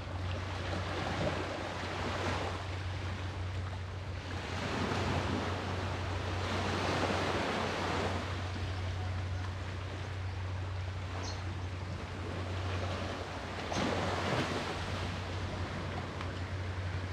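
Sea waves breaking and washing in, swelling and fading every few seconds, over a steady low hum.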